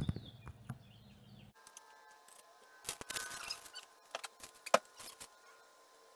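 A few scattered light clicks and knocks with a brief rustle, from a person moving about and handling small parts at an SUV's open tailgate. The sharpest click comes a little under five seconds in.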